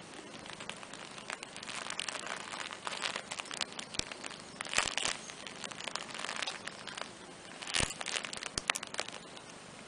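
Fabric playmat rustling and crinkling under a cat and a kitten as they shift about on it: irregular soft crackles and sharp little clicks, busiest through the middle seconds, with two louder crinkles about five and eight seconds in.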